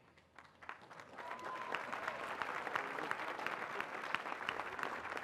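Large audience applauding: the clapping starts about half a second in, swells over the next second and then holds steady.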